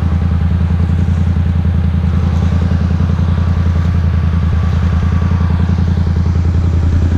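ATV engine idling steadily and loud, with an even pulse that holds the same pitch throughout.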